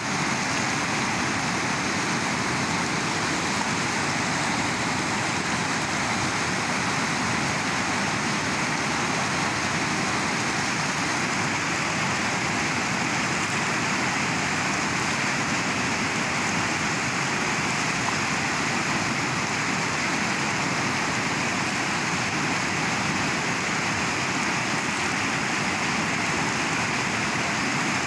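Fast, rocky mountain river rushing in white water: a steady, unbroken wash of noise.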